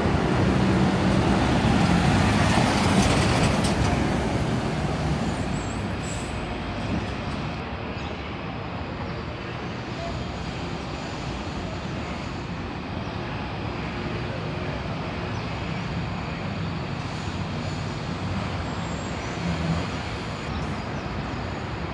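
City buses' diesel engines running as buses drive past, loudest in the first few seconds, then easing into a steady traffic rumble.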